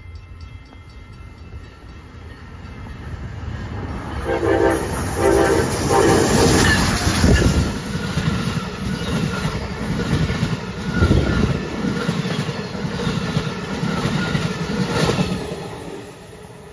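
Amtrak passenger train of Amfleet coaches passing at speed. Its horn sounds three short blasts about four to six seconds in, then the cars pass with a loud rumble and wheel clatter that drops away near the end as the train recedes.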